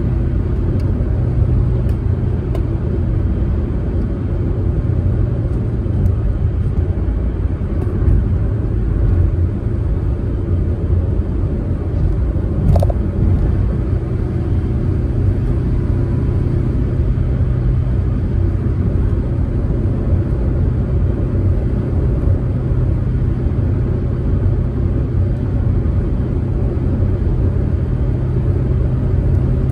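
Proton Saga MC2 cruising at a steady speed: an even engine drone over road and tyre noise. A single short knock about 13 seconds in.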